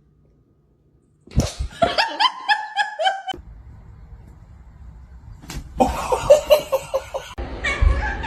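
High-pitched giggling laughter in a quick run of short repeated bursts, starting about a second in after a moment of silence, with more laughter and voices near the end.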